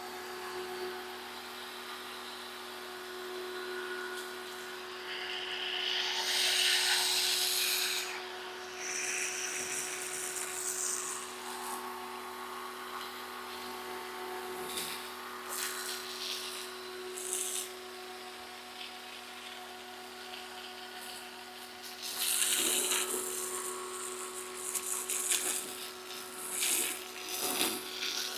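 Pressure washer running with a steady motor hum while a foam cannon sprays soap, the spray hissing in bursts that are loudest about six seconds in and again about twenty-two seconds in.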